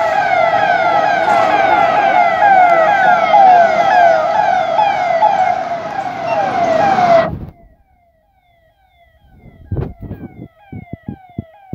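Police vehicle siren in a fast yelp: falling sweeps repeating about two or three times a second, loud until about seven seconds in, when it drops away suddenly to a faint yelp. A few short knocks near the end.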